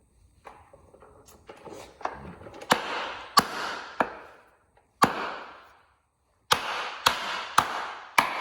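Hammer blows on a stuck motorcycle wheel axle, metal on metal with a short ringing after each strike: a few light taps, then about eight hard blows from about three seconds in, spaced half a second to a second apart. The axle is stuck, the wheel bearing possibly seized onto it.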